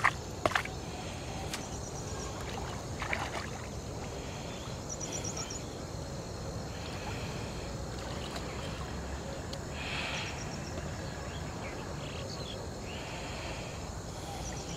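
Two sharp knocks at the very start as a wooden stake is hammered into the muddy canal bed. Then steady outdoor background with a few faint, quick high chirps.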